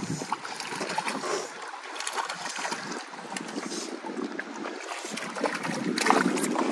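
Small waves lapping and slapping against the hull of a wooden drift boat, with a hooked trout splashing at the surface near the end.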